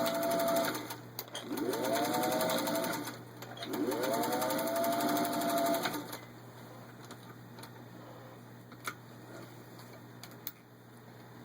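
Singer 201 sewing machine stitching through six layers of denim in three short runs. Each run's motor whine rises in pitch as it speeds up, then holds steady. It stops about six seconds in, and a few sharp clicks follow.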